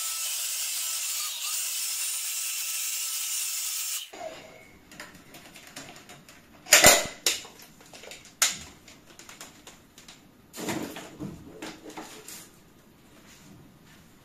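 Handheld hair dryer blowing steadily, switched off abruptly about four seconds in. After that come a few sharp knocks and clatters of handling, the loudest about seven seconds in.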